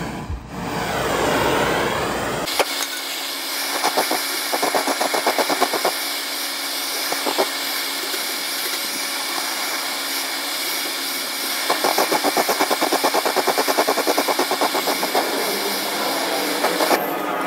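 Handheld butane blowtorch burning with a steady hiss while heating a steel spindle cutter knife for oil-quench hardening. Twice the hiss breaks into a rapid, even flutter of several pulses a second.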